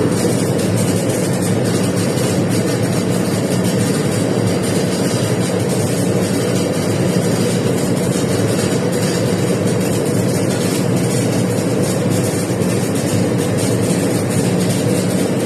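Stick welding a root pass with a 7018 electrode: a steady, continuous arc crackle over a constant low hum.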